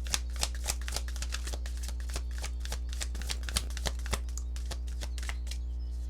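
Tarot cards being shuffled by hand: a quick run of crisp card clicks that thins out and stops near the end, over a steady low electrical hum.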